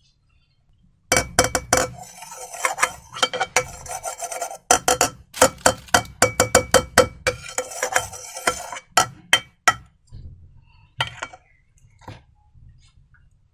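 A utensil clinking and scraping rapidly against a ringing bowl, as when stirring a slime mixture. It runs from about a second in to nearly ten seconds, followed by a few fainter taps.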